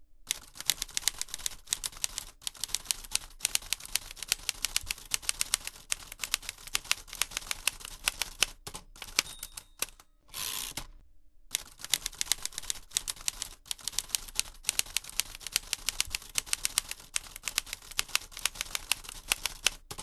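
Manual typewriter keys clacking in rapid, uneven runs of keystrokes. Near the middle the typing stops for a carriage return: a faint bell ding, a short sliding zip, a brief pause, then the keys start again.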